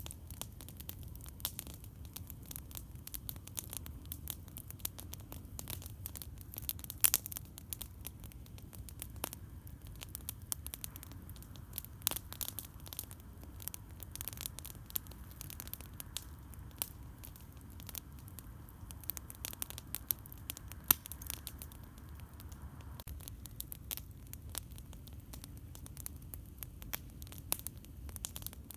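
Wood campfire crackling and popping: irregular sharp snaps scattered throughout, the loudest about seven seconds in, over a steady low rumble.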